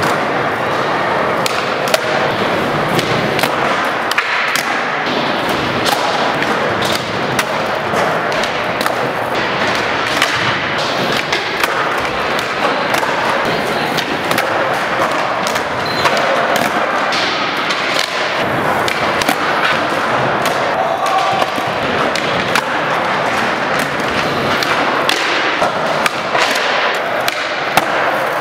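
Skateboard wheels rolling on smooth concrete, with many sharp pops and slaps as boards are kicked into flip tricks and land.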